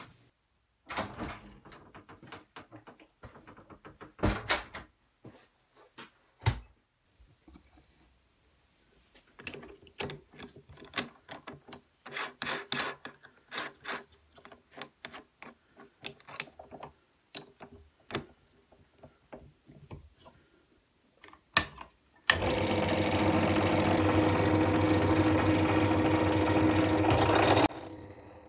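Metal clicks, clinks and knocks as a drill bit is fitted and tightened in a drill press chuck with a chuck key. About 22 seconds in, the drill press starts and runs steadily for about five seconds, boring into a wood block, then stops abruptly.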